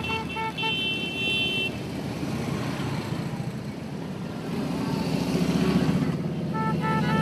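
A procession of motorcycles passing close by, their engines rumbling and growing louder as bikes go by about five seconds in and again near the end. Horns beep in quick series at the start and again near the end.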